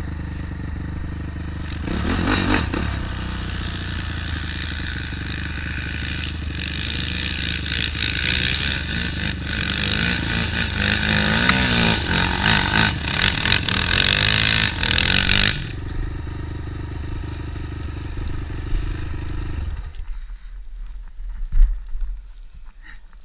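Honda sport ATV engine running while riding, its revs rising and falling over the middle stretch, then settling to a steady lower idle. About 20 s in the engine stops, followed by a few sharp knocks and scrapes.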